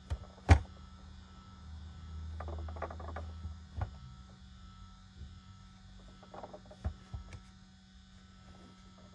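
Handling noise: a sharp knock about half a second in, then scattered clicks, rustling and a brief low rumble, with a further knock near the end, over a faint steady hum.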